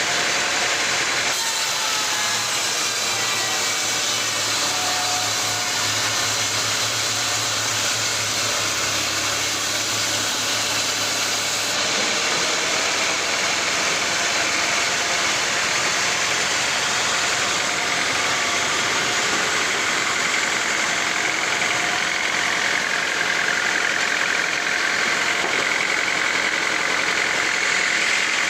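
Sawmill machinery running: a continuous engine-like drone with a hiss over it, steady in loudness, its character shifting abruptly about a second in and again about twelve seconds in.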